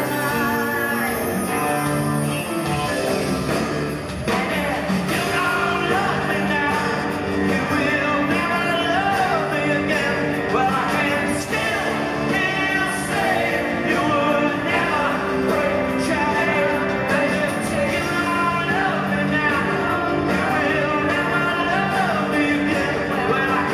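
Live rock band playing through an arena PA, heard from the audience: electric guitars, bass and drums under group singing.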